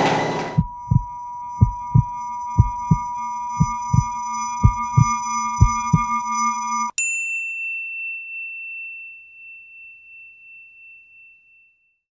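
Electronic outro music: a steady synthesized tone over pairs of low thumps about once a second, like a heartbeat. About seven seconds in it cuts to a single high ringing tone that slowly fades away.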